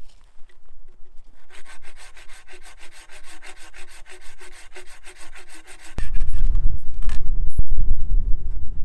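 Small hand saw with an orange handle cutting through a dead log in quick rasping strokes, starting about a second and a half in and stopping about six seconds in once the piece is cut through. After that a loud low rumble on the microphone takes over, with a few sharp clicks.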